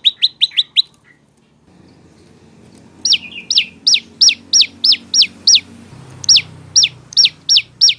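Prenjak lumut (lancur), a small songbird, calling in a loud quick run of sharp chirps that stops under a second in. After a pause of about two seconds it starts a repeated series of sharp downward-slurred whistled notes, about three a second.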